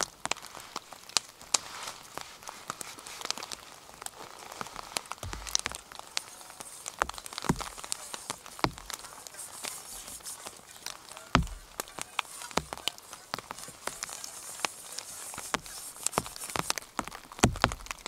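Rain and meltwater dripping: scattered sharp taps of drops over a steady hiss, with a few duller thumps now and then.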